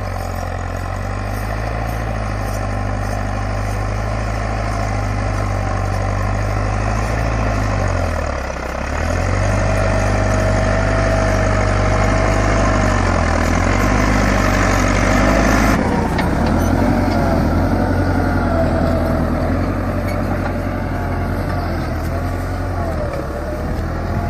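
Massey Ferguson 385 tractor's four-cylinder diesel engine running steadily under load while pulling a tine cultivator through dry soil. Its pitch sags briefly about eight seconds in and then picks up again. About sixteen seconds in the engine sound changes abruptly, with a new engine note continuing.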